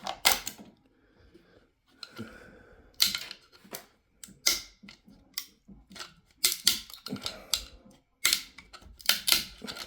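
Irregular sharp clicks and snaps of 3D-printed plastic support material being pried and broken off a printed planter with a screwdriver, in small clusters with a pause about a second in.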